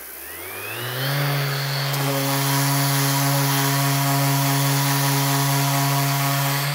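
Maxxt electric random orbital sander, a Mirka Deros copy, running free with the pad in the air. Its pitch dips and climbs back up in the first second, then it hums steadily at speed and starts to wind down at the very end.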